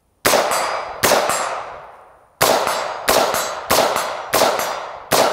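AR-15 rifle in .223/5.56 firing seven shots, each with a long echoing tail. There are two shots about a second apart, a pause, then five in a steady rhythm about two thirds of a second apart.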